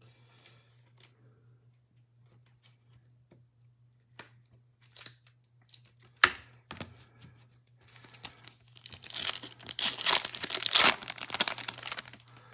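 Light taps and clicks of cards being handled, then a Topps Chrome trading-card pack wrapper being torn open and crinkled, loudest over the last few seconds.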